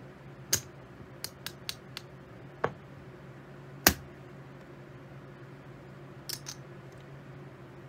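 Poker chips clicking together as they are picked up, sorted and stacked by hand. There are about ten sharp separate clicks, several in quick succession in the first two seconds, the loudest just under four seconds in, and a few more around six seconds.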